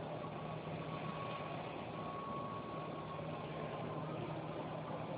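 Steady rumble and low hum inside a passenger train car, with a faint steady high tone over it, picked up by a cell phone microphone.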